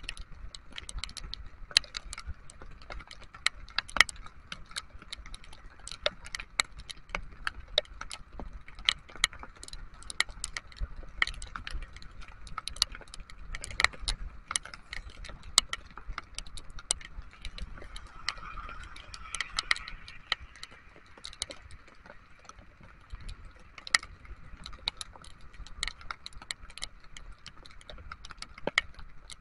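Raindrops striking close to the microphone on a moving motor scooter in rain: many sharp, irregular ticks, several a second, over a steady low rumble.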